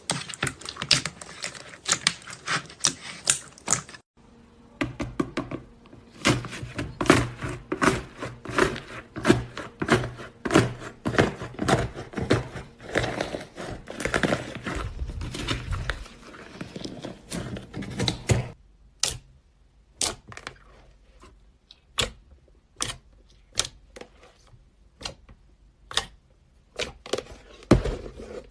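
Slime being squeezed and pressed by hand, giving fast runs of crackling clicks and pops. The sound breaks off about four seconds in, then comes back as denser crackling. For the last third it thins to sparse, sharp pops.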